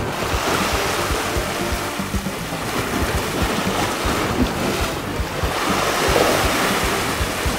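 Sea swell surging and washing over a rocky shoreline, the surf noise swelling twice, with wind buffeting the microphone in low thumps.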